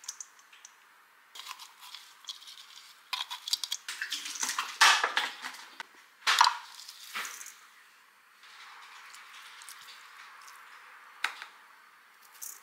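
A spoon scraping and knocking as chopped vegetables are tipped from a glass bowl into a stainless steel mixing bowl of ground beef: an irregular run of scrapes and clinks with a few sharp knocks, then a faint steady hiss in the second half.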